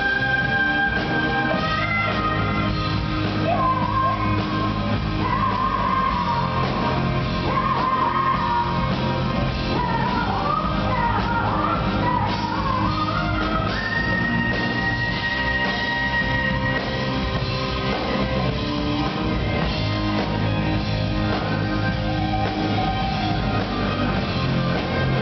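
Progressive rock band playing live, with a wavering, bending lead melody over the full band and a long held high note a little after halfway through.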